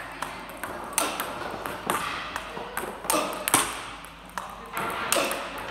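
Table tennis balls clicking off rackets and the table in quick succession during a multiball backhand drill, with a louder racket strike about once a second, echoing in a large sports hall.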